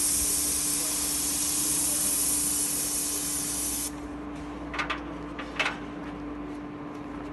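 Airless paint spray gun of a HYVST SPT 490 sprayer spraying paint through its tip: a loud steady hiss that starts sharply and cuts off about four seconds in as the trigger is released. A steady hum runs underneath, and two brief clatters follow near the end.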